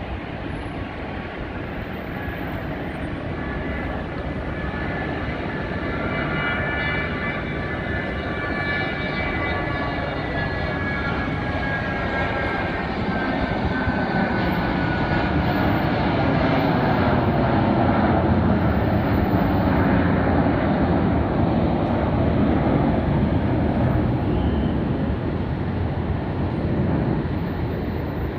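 Twin Pratt & Whitney Canada JT15D turbofans of a 1980 Cessna Citation II at takeoff power through the takeoff roll and climb-out. A whine of several high tones slowly falls in pitch over the first half, giving way to a broad rumble that is loudest about two-thirds of the way in and eases slightly near the end.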